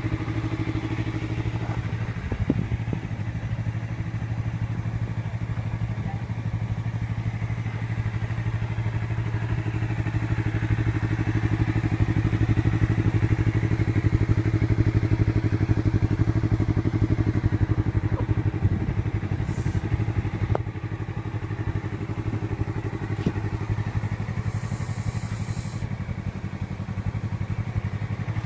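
Motorcycle engine idling steadily, getting a little louder toward the middle, with a single knock a couple of seconds in.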